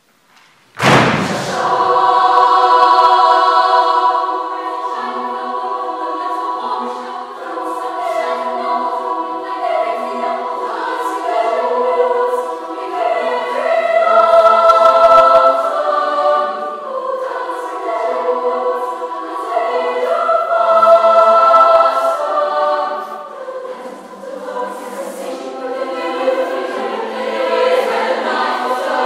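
School choir singing, coming in loudly all at once about a second in, with short repeated low notes beneath held chords in the upper voices.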